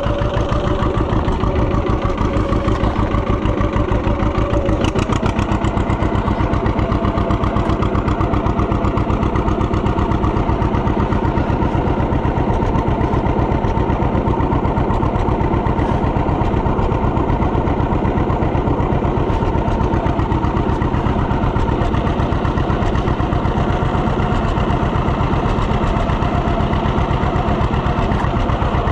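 Tractor engine running steadily at an even speed, its firing pulses regular throughout.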